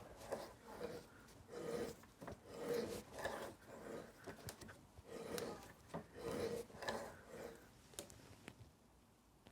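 Hand tool working a steel bolt in a series of short rasping, rubbing strokes, about one and a half a second, which stop near the end.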